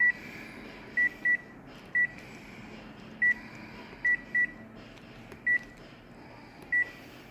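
Short, high single-tone beeps from a colour photocopier's control panel as its buttons are pressed, nine in all at uneven intervals, over a faint steady low hum.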